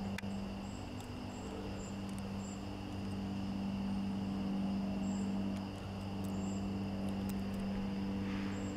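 Steady low hum of room tone, with faint high-pitched chirps repeating every half second or so and a few light clicks.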